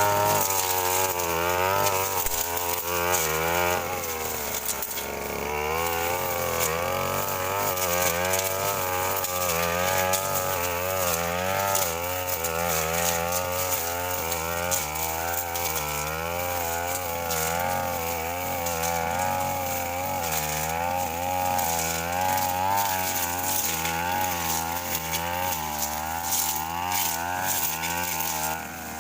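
Brush cutter engine running under load, its pitch rising and falling constantly as the metal blade cuts through brush and woody scrub, with a brief drop about four to five seconds in.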